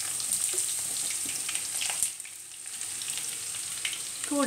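Sliced onions sizzling in hot sunflower oil in a kadai where mustard seeds are popping, with small crackles throughout. A tap about two seconds in, after which the sizzle is a little quieter.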